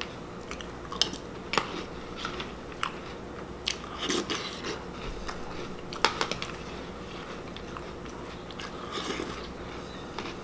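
A person chewing a mouthful of Honey Nut Cheerios in milk, with irregular crunches and a few sharp clicks over a steady low hum.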